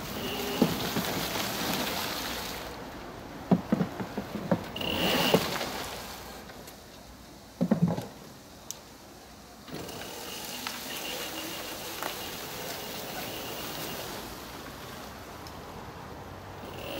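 Electric 2.2 kW ATV driving over grass and fallen leaves: a thin, high, steady motor whine over tyre rustle, with a few sharp knocks in the middle. It drops almost to quiet for a few seconds as the quad stops, then the whine and rustle pick up again as it pulls away.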